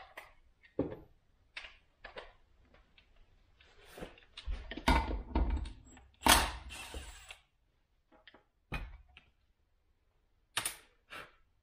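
Irregular mechanical clicks and metal clanks of a tool working the flywheel nut on a Stihl MS500i chainsaw's powerhead to get the flywheel off. There is a cluster of heavier knocks about five seconds in and the loudest clunk just after.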